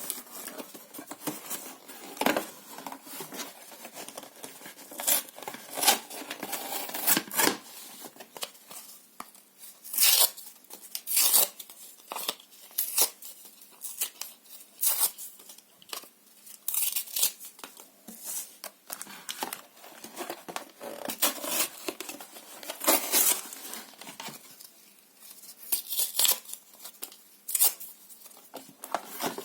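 Paper and cardboard being torn by hand in short, irregular rips, with some crinkling between them.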